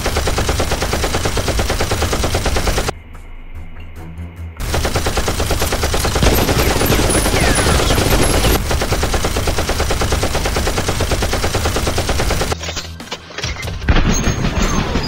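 Automatic gunfire sound effects: rapid, continuous machine-gun shots. They break off about three seconds in, resume about a second and a half later, and dip briefly near the end.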